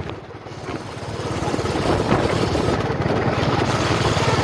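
Vehicle engine running with a fast low pulse as it drives along a rough dirt track, growing louder over the first second or so and then holding steady.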